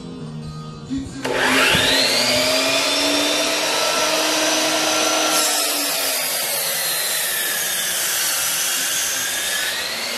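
Electric miter saw starting up with a rising whine, then cutting through a round wooden spindle. From about halfway in, the motor's whine drops in pitch under the load of the cut and climbs back near the end as the blade comes through.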